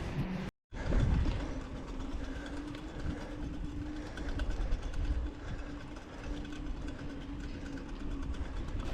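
Loaded touring bicycle being ridden: steady rolling rumble from the tyres with a fine rattle from the bike and its bags, and a faint steady hum. The sound cuts out briefly about half a second in.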